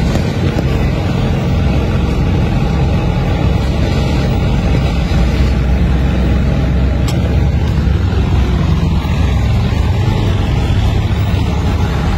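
Steady low rumble of a motor vehicle engine running, holding an even pitch without revving.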